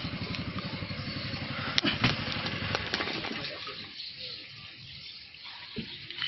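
Floodwater sloshing and splashing as a person wades through it. A low, evenly repeating pulse runs under the water sound and fades out about three and a half seconds in.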